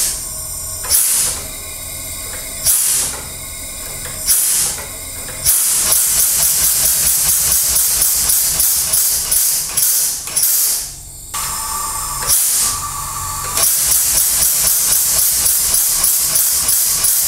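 Homemade steam-motorcycle engine running on compressed air (about 6 atmospheres), its exhaust hissing out in puffs. The puffs come slowly at first, about one every second and a half, then speed up after about five seconds into a quick, even run of several a second. It slows briefly to two separate puffs about two-thirds of the way through, then runs fast again with a thin whine alongside.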